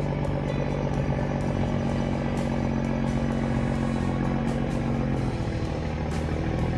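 Engine of a loaded logging truck running steadily; its note changes about five seconds in.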